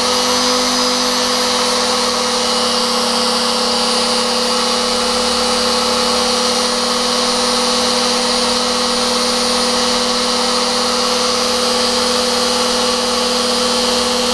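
Virutex FR156N trimmer motor running at full power, held at a steady pitch after spinning up, driven by its repaired triac speed-control board: the sign that the board now works.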